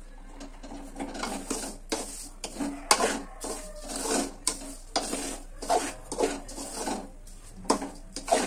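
Metal spoon stirring and scraping roasted semolina and sugar around an aluminium kadai, in repeated rasping strokes about twice a second, with a few sharp clinks of spoon on metal.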